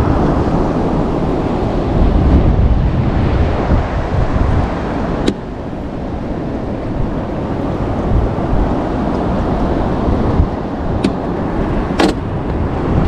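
Wind buffeting the microphone over the rush of water on a small fishing boat under way at sea, a steady low rumbling noise. Sharp knocks of gear against the boat come about five seconds in and twice near the end.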